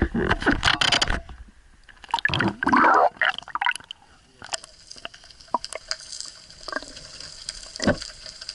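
Water splashing and sloshing in two loud spells, with a few sharp knocks. From about halfway through, a steady hiss of running water.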